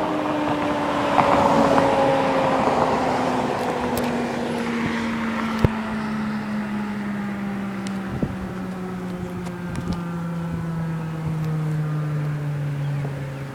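Federal Signal 2001 DC electromechanical tornado siren winding down, its tone falling slowly and steadily in pitch as the rotor coasts. A rush of noise passes through about a second in, with a few sharp clicks later.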